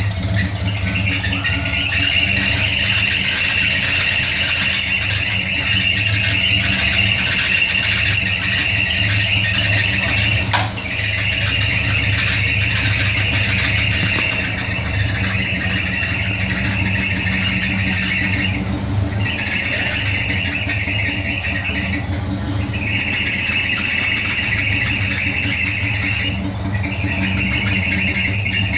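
Chevrolet Opala engine running with its drive belt squealing loudly and steadily, the squeal breaking off for a moment about four times; the belt noise is why the belt is due to be replaced.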